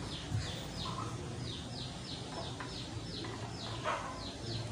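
A bird chirping over and over: short, high chirps that fall in pitch, about three a second.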